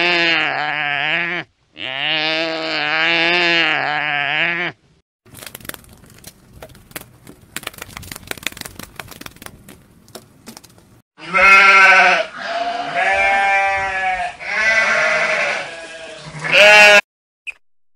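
Three animal sounds in a row: two long, wavering antelope calls; then several seconds of faint crackling and ticking offered as a butterfly's sound; then a ram bleating four times, the last bleat short.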